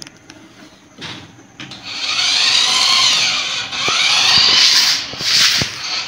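Toy remote-control car's small electric motor and gears whining as it drives, the pitch rising and falling as it speeds up and slows. The first second and a half is quiet apart from a few clicks.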